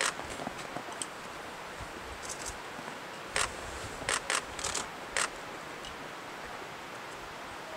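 Steady outdoor background hiss with a handful of short, sharp clicks close to the microphone, most of them in a quick cluster around the middle.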